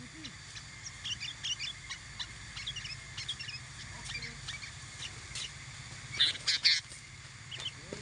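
Sooty-headed bulbuls (kutilang) chirping and calling: scattered short chirps for the first few seconds, then a louder burst of calls about six seconds in.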